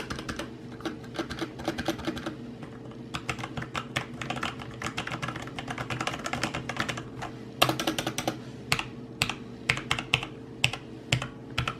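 Typing on a Logitech G513 mechanical keyboard with Romer-G switches: fast, dense runs of key clicks, with slower, separate keystrokes in the last few seconds.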